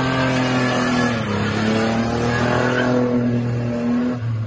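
Holden VN Commodore's 3.8-litre V6 held at high revs in a burnout, the rear tyres spinning and squealing on the road surface. The engine note dips briefly about a second in, climbs back, then drops away near the end.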